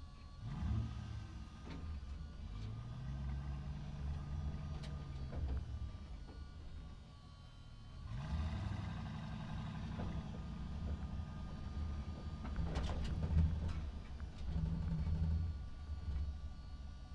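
Truck engine driving through a parking structure, pulling away with a rise in pitch and easing off, then picking up again about 8 seconds in. A few sharp knocks come near the loudest point, about 13 seconds in.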